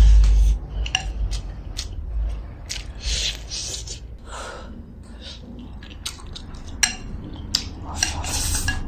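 Wooden chopsticks clicking and scraping against a porcelain bowl while eating, with short slurps; a longer slurp near the end as the bowl is tipped to the mouth. A low thump at the very start.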